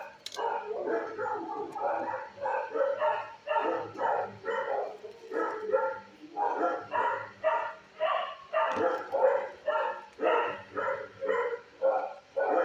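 Dog barking over and over in a steady run, about two to three short barks a second.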